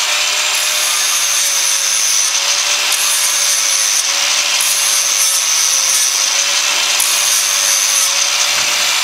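Handheld angle grinder running steadily under load, its disc grinding the heavily rusted end of an iron bar down to clean metal so that welding current will pass. The motor's whine wavers slightly as the disc bites.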